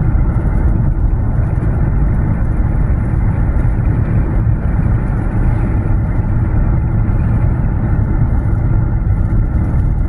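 Steady noise of a car driving along a street, heard from inside the vehicle: an even, low rumble of road and wind noise with no change in speed.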